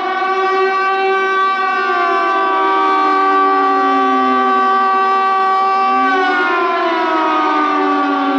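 Civil defence tsunami warning siren sounding loudly in an alert-system test: a wail of several steady tones, some pitches sliding slowly down, with a new rising glide about six seconds in.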